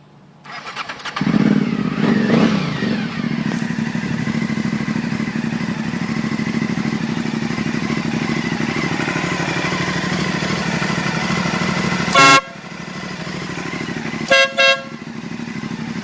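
Aprilia Dorsoduro 750's V-twin engine starts about half a second in, is revved twice, then runs at a steady idle. Near the end an air horn gives one short, loud blast, followed about two seconds later by two quick toots.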